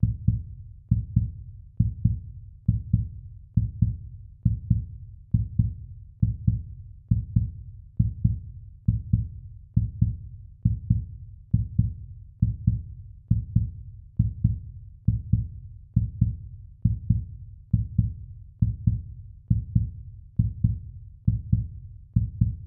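Heartbeat sound effect: a steady rhythm of low, double thumps (lub-dub), a little over one beat a second.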